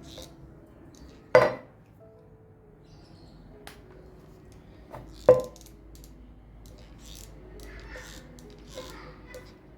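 Two sharp knocks of hard objects being handled, about four seconds apart, each with a brief ringing after it, among a few lighter clicks.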